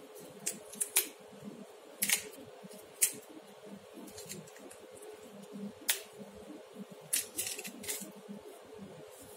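Fresh broccoli florets snapped off the head by hand: irregular crisp snaps, the sharpest about one, two, three and six seconds in, over a faint steady hum.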